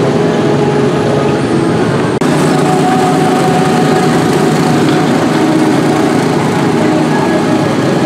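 Small gasoline engines of Speedway ride cars running as the cars drive the track, a steady mower-like engine drone, with a brief dropout about two seconds in.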